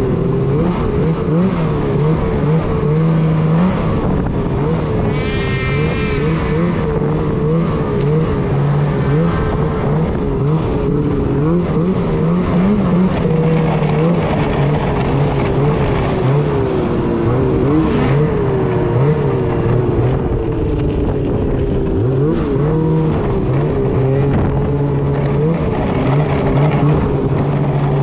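Snowmobile engine running under way, its pitch rising and falling as the throttle is worked, with a brief high whine about five seconds in.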